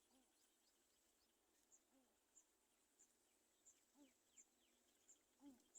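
Very faint outdoor ambience: an insect chirps high and short at an even pace of about once every 0.7 seconds, with soft, low, rising-and-falling animal calls every second or two.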